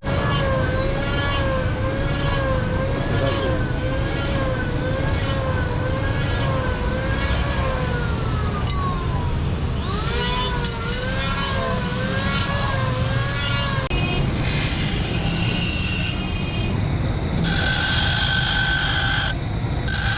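A siren wavering up and down in pitch about once a second, with one long falling sweep and a quick rise near the middle, over a steady low rumble. About two-thirds of the way through it gives way to shrill, steady high tones that cut in and out.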